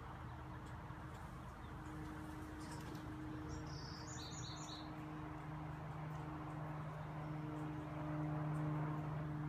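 A steady low hum that grows louder near the end, with a short run of about six quick high chirps about four seconds in and a few faint clicks.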